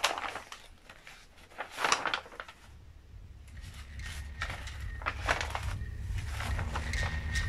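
Large paper pages of a thick photocopied artist's book being turned by hand: a series of about five dry paper rustles and flaps. A low rumble swells in the background from about halfway.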